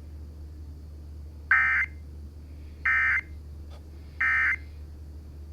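Emergency Alert System end-of-message data bursts (the digital NNNN code) from a NOAA Weather Radio, played through the radio's speaker: three short buzzing bursts about a second and a half apart, signalling the end of the warning broadcast. A low steady hum runs underneath.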